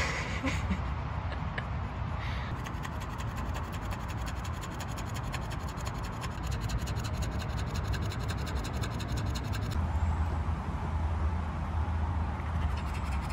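A corgi panting fast and steadily, over a low wind rumble on the microphone.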